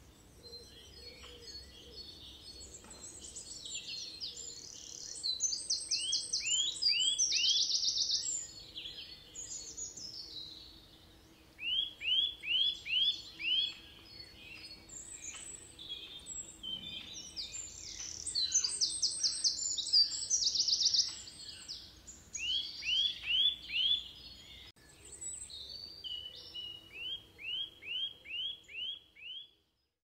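Woodland songbirds singing, several at once, in phrases of quick repeated notes and fast high trills that come and go.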